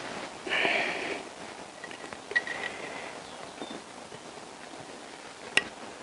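Small scraping and squeaking of a thin metal pick prying a perished, brittle rubber seal off the end of a chrome motorcycle coolant pipe, with one sharp metallic click near the end.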